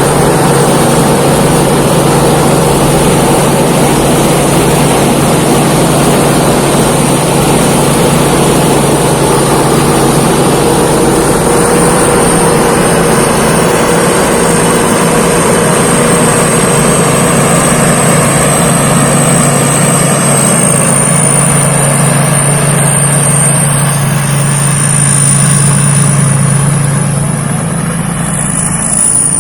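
Thai Seng Yont rice combine harvester running steadily while harvesting rice: a loud, even engine drone with a thin high whine above it. The sound eases slightly near the end.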